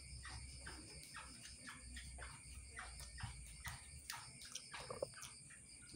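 Faint animal calls: a string of short falling chirps, about three a second.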